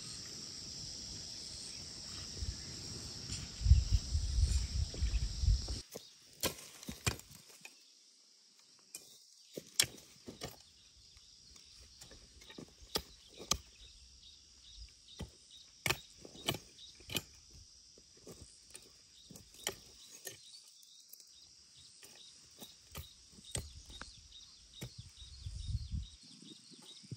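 Steady rumbling noise for about six seconds, then it drops away, leaving irregular sharp knocks and taps, one or two a second, over a steady high-pitched hiss.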